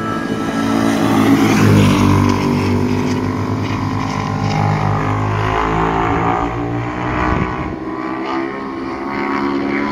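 Sport motorcycle V-twin engines running hard, their pitch rising and falling as the bikes accelerate and ease off, loudest about two seconds in.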